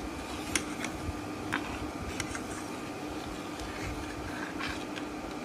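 A metal spoon stirring grape juice and sugar in a steel pan, with a few faint clicks of the spoon against the pan, over a steady hum and hiss.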